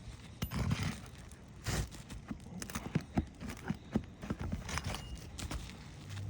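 Irregular knocks, clicks and short scrapes of hands, tools and feet working on an asphalt shingle roof, as shingles are lifted for a repair test.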